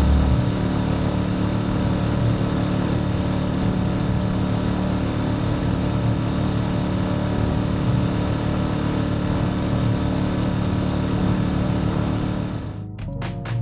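Boat outboard motor running steadily, with a constant rush of noise underneath. The sound drops away near the end.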